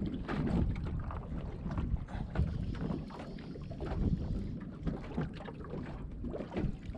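Wind buffeting the microphone over water slapping irregularly against the hull of a small boat riding at anchor in a swell.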